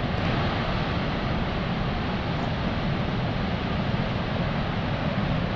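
Steady rushing of water pouring out through a dam's spillway gates, with wind buffeting the microphone.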